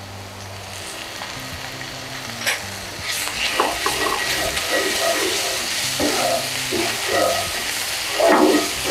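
Onion, garlic, spices and tomato paste sizzling in a cast-iron skillet, with a wooden spatula stirring and scraping through the mixture from about three seconds in.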